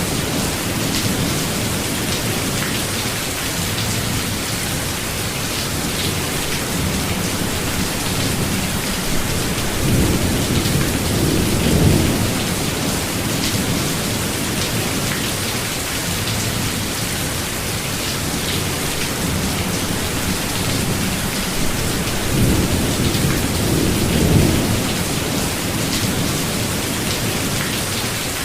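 Steady heavy rain falling in a forest, with thunder rumbling low in the background, swelling twice, about ten and twenty-three seconds in.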